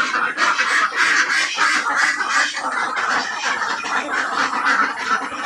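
A flock of domestic ducks quacking without a break, many calls overlapping into a continuous clamour.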